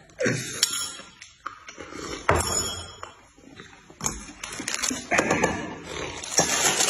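Clinks and knocks of tableware, including a large stainless steel basin being handled and set down on a plate, some with a brief metallic ring.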